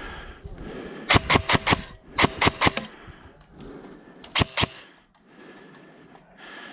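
Airsoft gun firing rapid single shots in three quick strings: about five shots a second in, four or five more a second later, then two or three near the middle.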